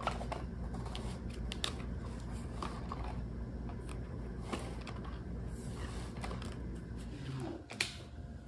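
Hands handling small objects on a tabletop: scattered light clicks and taps, with one sharper click near the end, over a steady low room hum.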